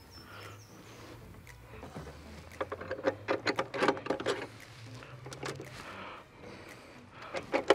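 Steel front axle being pushed through the fork legs, spacers and wheel hub of an electric chopper scooter: a run of metal clicks and taps between about two and a half and four and a half seconds in, and a few more near the end, over a low steady hum.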